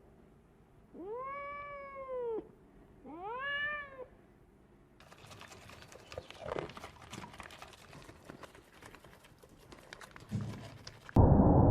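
A domestic cat meowing twice, each meow rising then falling in pitch. Several seconds of faint scratchy, clicking noise follow. Near the end a loud, low rumbling noise cuts in abruptly.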